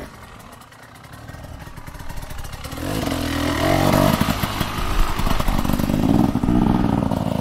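An engine revving. The sound builds over the first few seconds, then rises and falls in two long revs and cuts off at the end.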